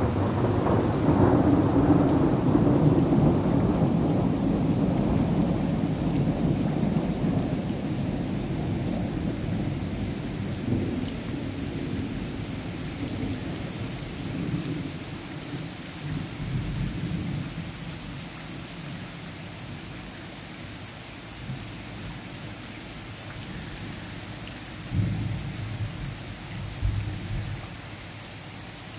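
Rolling thunder, loudest in the first few seconds, then rumbling away slowly over about twenty seconds, with two short further rumbles near the end. Steady rain falls throughout.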